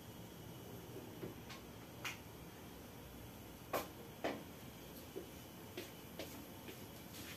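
About ten short, light clicks and taps at irregular intervals over faint room hiss, the two loudest close together about halfway through.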